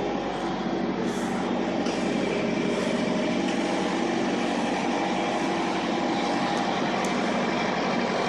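Steady running noise of a vehicle being driven, its engine and tyres heard from on board.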